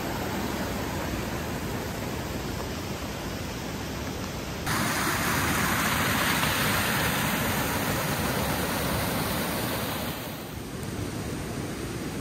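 Steady rushing of heavy rain, which turns abruptly louder and brighter about five seconds in and falls back about ten seconds in.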